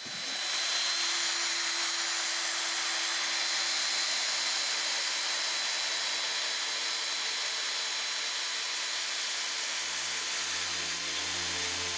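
A power tool running steadily: a continuous whirring hiss with a thin high whine over it. Music comes in near the end.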